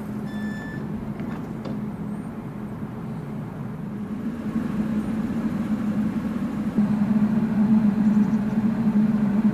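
CAF Urbos AXL light-rail tram humming steadily, the low hum growing louder over the last few seconds. A short electronic beep sounds right at the start.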